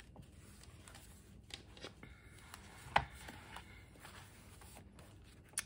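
Thin Bible pages rustling faintly as a Bible is handled and leafed through, with a light knock about three seconds in and another near the end.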